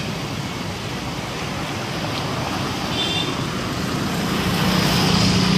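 Steady roadside traffic noise, with a large vehicle's engine hum growing louder from about four seconds in as a bus approaches.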